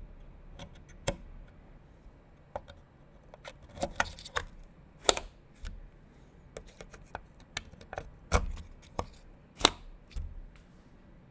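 Computer parts being handled and fitted during a PC assembly: many sharp clicks and light knocks at irregular intervals, a few louder ones about five and eight to ten seconds in.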